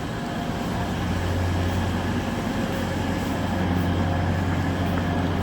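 Northern Class 195 diesel multiple unit running past, its diesel engine giving a steady low drone.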